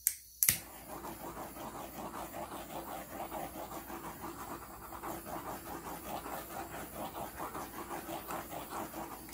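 Handheld butane torch clicking alight, two sharp igniter clicks, then its flame hissing steadily with a quick flutter as it is passed over wet acrylic pour paint; it is shut off abruptly at the end.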